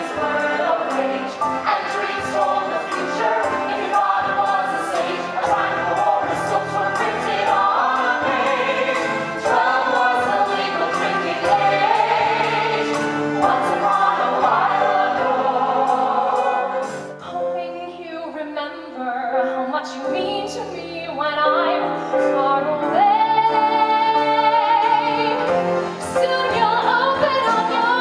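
Stage musical number: choral ensemble singing with musical accompaniment. About two-thirds in the sound thins and quietens, then a single sung note is held with vibrato.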